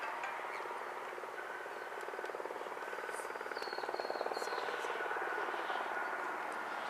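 Airbus A320's twin IAE V2527-A5 jet engines heard from afar on the landing roll just after touchdown: a steady roar with a thin high whine. It grows louder about three seconds in, typical of the engines spooling up for reverse thrust.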